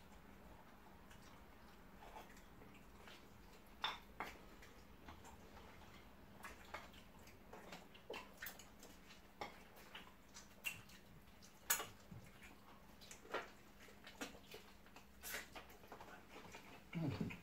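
Faint eating sounds: irregular wet mouth smacks and chewing clicks as two people eat rice and stew by hand and with a fork.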